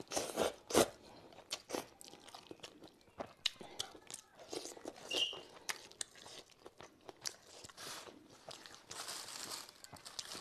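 A person eating handmade wheat noodles close to a clip-on microphone: a mouthful of noodles sucked in during the first second, then steady chewing with many small wet clicks and smacks.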